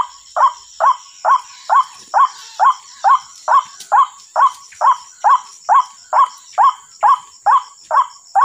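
White-breasted waterhen's short 'kwak' call repeated evenly and monotonously, a little over two calls a second, over a faint steady high-pitched whine.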